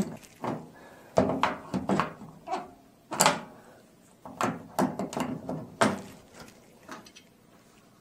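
Adjustable wrench clicking and knocking against the water-inlet hose nut and the sheet-metal back panel of a washing machine as the nut is tightened lightly. About a dozen short knocks, irregularly spaced, stopping about seven seconds in.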